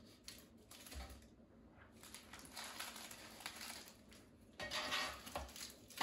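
Faint clicks and rustling as wrapped tamales are handled and set in a cooking pot, with a louder rustle about five seconds in.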